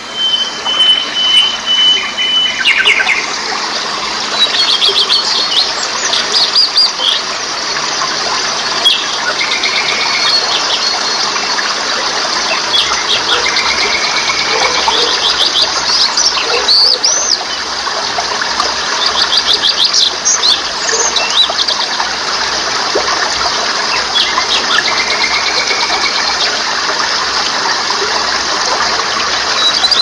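Water rushing and splashing over rocks in a stream, a steady hiss, with songbirds calling over it throughout: quick high chirps and trills, a few short whistles, and one long steady whistle at the start.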